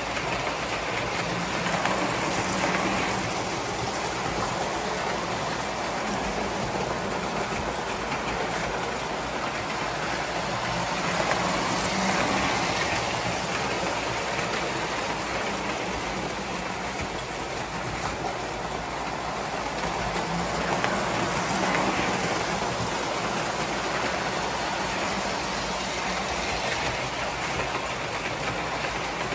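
Tinplate Standard Gauge toy trains running around the layout: a continuous metallic rumble and clatter of wheels on the steel track under a steady motor hum, swelling about every nine or ten seconds as a train passes close by.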